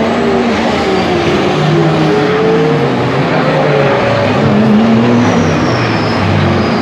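Several race cars running at speed, their engines overlapping with pitches rising and falling as they pass, and a high whine that falls slowly in pitch in the second half.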